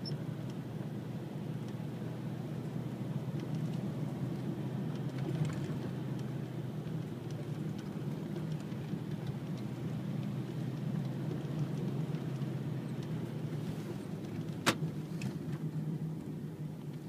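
Car engine and road noise heard from inside the cabin while driving: a steady low hum throughout. A single sharp click stands out near the end.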